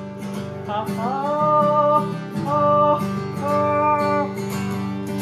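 A singer holding long notes that scoop up into pitch, three times, over ringing guitar chords; a line sung and played as a sound check on a newly swapped-in microphone.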